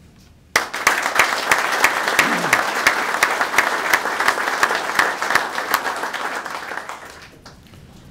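Audience applauding: the clapping starts suddenly about half a second in and fades away near the end.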